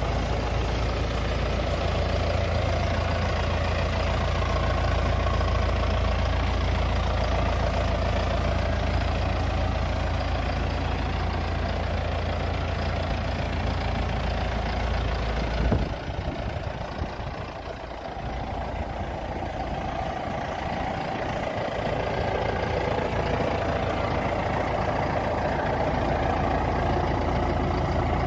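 John Deere 5100R tractor's four-cylinder diesel engine idling steadily. The deep low rumble drops away a little past halfway, the sound dips briefly, then it comes back steady.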